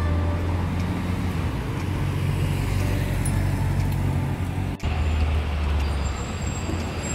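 Busy city street traffic: cars and double-decker buses passing close by, with a low steady engine hum from a nearby bus. The sound cuts out for an instant just under five seconds in.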